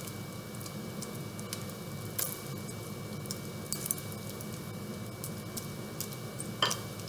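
Bacon strips sizzling in a nonstick frying pan, with scattered sharp pops of spattering fat over a steady low hum. Two louder crackles come near the end.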